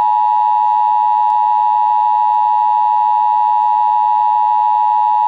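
Emergency Alert System attention signal from a Sage EAS encoder/decoder: a loud, steady two-tone alarm held without a break.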